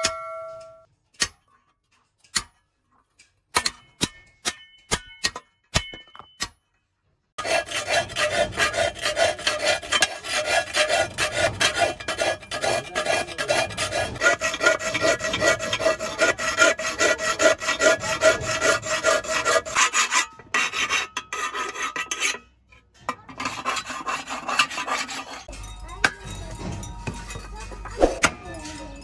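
A tool rasps rapidly and continuously across an iron kassi blade, and the sheet metal rings with a steady tone under the strokes. A few sharp, separate taps on the metal come before it, and the scraping thins out near the end.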